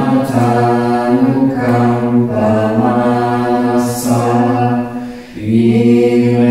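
Buddhist mantra chanted by low voices on a steady, near-level pitch in long held notes, with a short break for breath about five seconds in.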